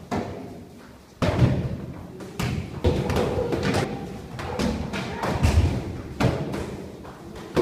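Children's kicks and punches landing on padded kick shields and focus mitts: a run of irregular thuds, several every second.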